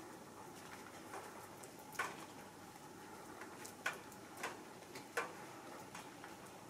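Faint outdoor background hiss with four or five short, sharp clicks at uneven intervals, the first loud one about two seconds in.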